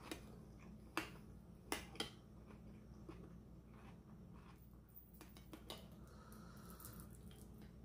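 Metal spoon clinking and scraping against a stemmed cup of ceviche as it stirs and scoops, with a few sharp clicks in the first two seconds and softer taps later, over a low steady hum.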